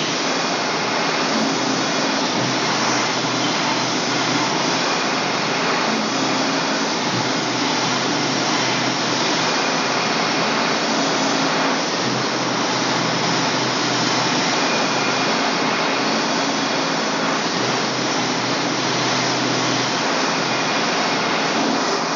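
Portable band sawmill running steadily under load: its engine running with a steady low hum while the band blade saws lengthwise through a pine cant.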